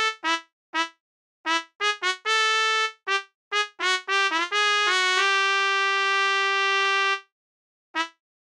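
Background music: a brass melody of short, separate notes, then one long held note from about five to seven seconds in, and a last short note near the end.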